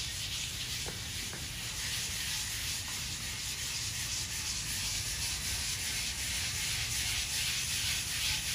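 Handheld griddle scrubber pad scrubbing back and forth over a wet steel griddle top, a steady scratchy rubbing. The pad is working lemon juice and water into the steel to lift old seasoning.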